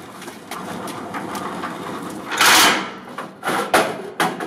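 Corrugated steel shed door being handled: a loud scrape a little over two seconds in, then a quick run of sharp metallic knocks and rattles.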